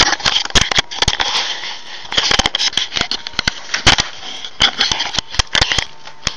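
Handling noise from a hand-held camera being moved about: a rapid, irregular run of sharp clicks and knocks mixed with rustling bursts.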